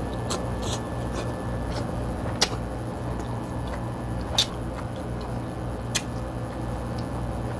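King crab being eaten by hand: a handful of sharp, scattered clicks and cracks from the shells being handled and sucked clean, over a steady low hum.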